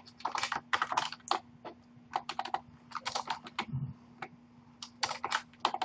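Typing on a computer keyboard: quick irregular runs of keystrokes with short pauses between them, over a faint steady hum.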